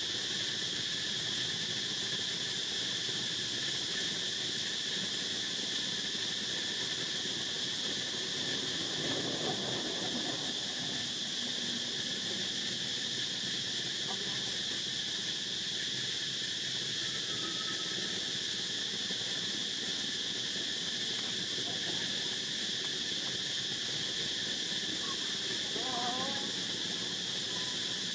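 Steady chorus of insects: a continuous high drone with a fainter, lower band beneath it.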